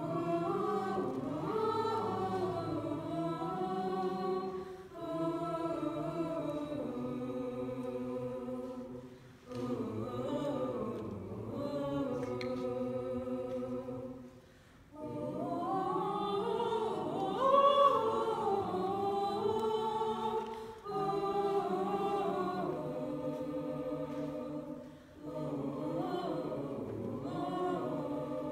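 A small choir of young voices singing a cappella, with no instruments, in long phrases broken by short pauses for breath.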